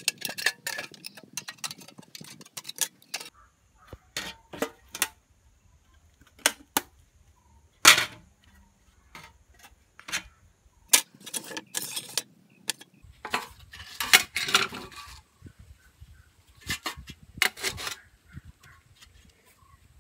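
Irregular metal clicks, scrapes and clinks of pliers and a screwdriver prying at the bent tabs of a rusty tin box, as its sheet-metal panels are worked apart and handled. A single sharp knock about eight seconds in is the loudest.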